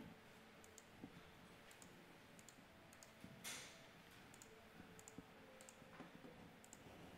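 Near silence with faint, sharp clicks every half second or so, from someone working at a computer, and one brief soft hiss about halfway through.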